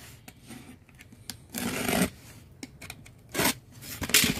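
Cardboard box being worked open: its flaps and slit packing tape rub and scrape in a few short rasping bursts, the longest about a second and a half in.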